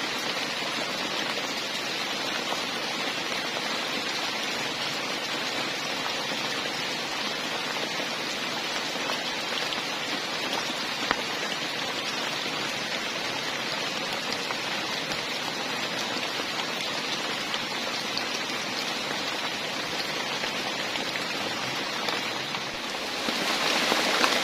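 Heavy rain falling steadily, an even hiss of drops, growing louder near the end.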